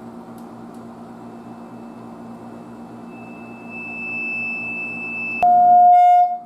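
Test tone from a signal generator played through a tube amplifier into its speaker: a high steady tone comes in about three seconds in and grows louder, then switches abruptly to a lower, much louder tone, which briefly drops out near the end. A low steady hum runs underneath.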